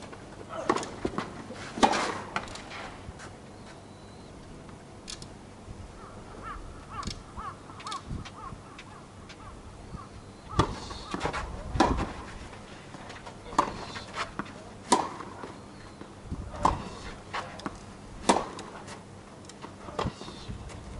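Tennis ball bounced and struck with racket strings: a cluster of sharp knocks near the start, then, about ten seconds in, a serve followed by a rally of hits about every one and a half seconds.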